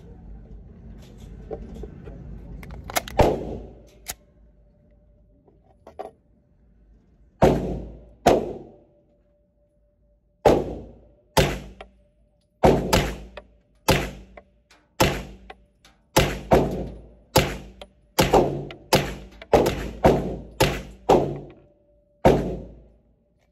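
Suppressed Staccato P 2020 pistol firing about twenty shots, singly and in quick pairs. Each shot is a sharp, dulled report that rings on briefly in the enclosed range.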